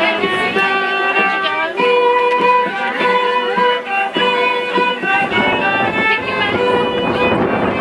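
Live fiddle playing a folk-dance tune in sustained, clear notes, with a guitar accompanying. About five seconds in, the children's shuffling feet and voices grow louder under the music.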